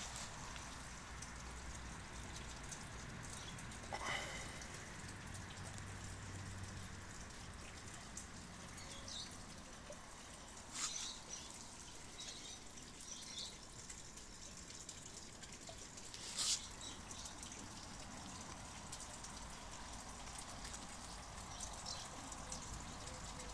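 Quiet outdoor background noise, a steady low hiss and hum. A few short, sharp, high-pitched clicks and chirps are scattered through it, and one falling whistle-like sound comes about four seconds in.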